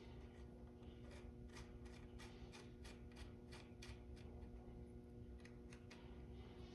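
Faint run of sharp, evenly spaced clicks, about three a second, from a hand ratchet turning a bolt in as the chain guide is fitted, pausing and then clicking again a few times near the end. A steady low hum sits underneath.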